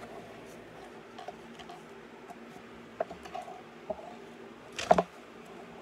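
Small plastic LEGO pieces clicking against each other as parts are handled and sorted, a few light clicks and then a sharper double click near the end.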